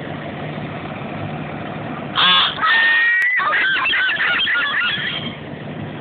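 Fire engine idling steadily. From about two seconds in until about five seconds in, a louder, high, wavering call rises and falls over the engine, much like a voice or a honk.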